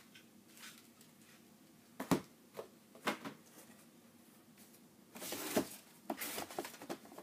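Boxed filament spools being handled in a cardboard carton: a knock about two seconds in and another about a second later, then a rustling, scraping stretch near the end as boxes are moved about.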